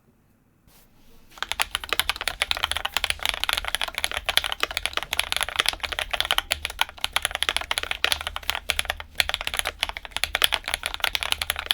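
Cadence 75 custom mechanical keyboard in its 'Copper Clang' build, typed on fast and continuously, a dense run of key clicks starting about a second and a half in.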